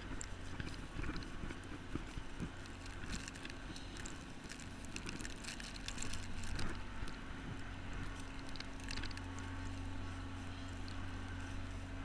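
Steady low hum of a commuter train standing at the platform, with footsteps and clothing rustle as someone walks along the platform and steps aboard.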